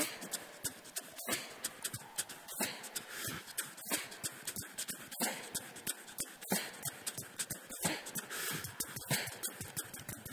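A beatboxer laying down a steady vocal drum beat: a strong hit about every 1.3 seconds with lighter clicks and ticks between.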